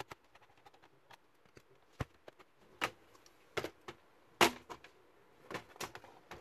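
Irregular plastic clicks and knocks from a Dell Inspiron 15 3000 laptop's casing being handled, lifted and turned over on a desk. The loudest knock comes about four and a half seconds in.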